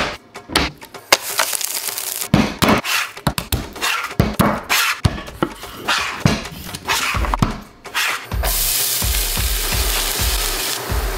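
A run of sharp knocks and chops of food prep on a cutting board. About eight seconds in, a steady sizzle starts: chopped onion frying in hot oil in a pan. Under it all is background music with a steady beat.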